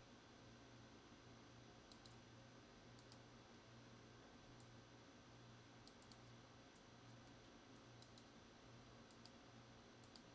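Near silence with faint computer mouse clicks, several in quick pairs, scattered every second or so over a faint low hum.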